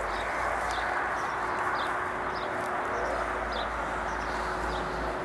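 Small birds chirping, short high chirps every second or so, over a steady rushing background noise.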